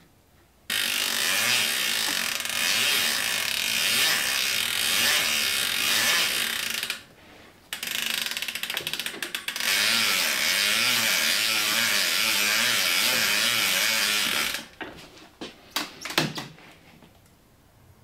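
Bicycle freewheel ratchet buzzing in fast clicks as the cranks are turned backwards while the pedals are tightened with a pedal spanner. Two long runs, with a short break about seven seconds in and a few slower, separate clicks after it, then scattered knocks about fifteen seconds in.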